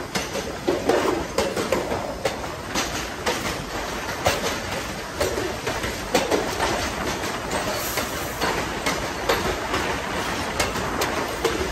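New York City Subway 1 train of R62A cars running along elevated track, heard aboard: a steady rumble of wheels on rail with irregular clicks and knocks several times a second as the wheels pass over rail joints and track work.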